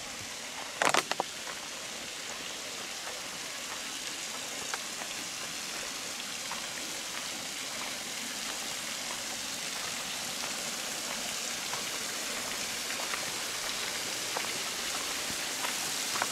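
Steady rushing of a small waterfall and stream spilling over a granite rock face, gradually getting louder. A few sharp clicks about a second in.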